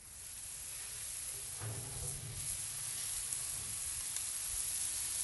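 Seasoned skirt steaks sizzling on a hot grill grate, a steady hiss that grows louder over the first second or so as the grill lid is lifted.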